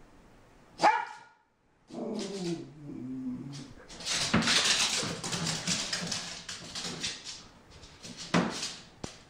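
A frustrated puppy barking and growling: a sharp bark about a second in, a growly whining run after it, a long noisy stretch in the middle, and another sharp bark near the end.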